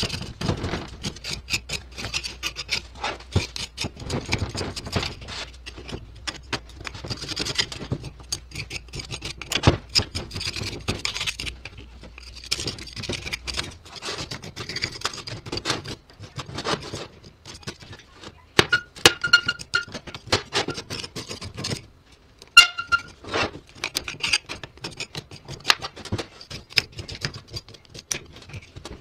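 A putty knife and a flat metal bar scraping caked dirt and crud off a Chevrolet lever-type shock absorber on a metal workbench. The strokes are irregular and scratchy, mixed with clicks as tool, part and clumps of dirt knock on the bench.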